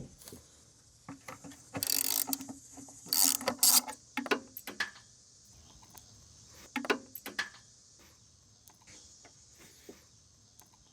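Hand ratchet wrench clicking as a bolt is worked loose, in several short bursts with pauses between.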